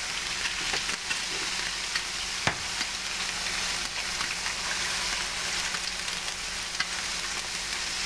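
Eggs frying in a little oil on an electric griddle plate: a steady sizzle with scattered small pops and crackles, and one sharp tap about two and a half seconds in.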